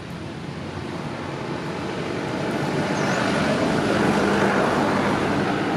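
Motor vehicle going by: a rushing engine-and-tyre noise that swells over the first four seconds and then holds.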